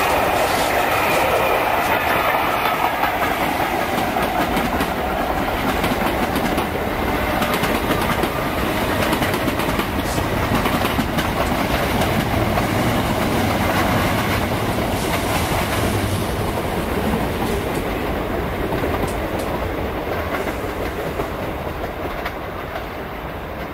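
Third-rail slam-door electric train passing close at speed, its wheels clattering over the rail joints, with the whine of its nose-suspended traction motors falling in pitch over the first few seconds. The noise fades slowly toward the end.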